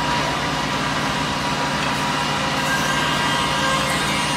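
CNC tenoning machine running steadily amid other woodworking machinery: a continuous mechanical hum with a steady high tone over it.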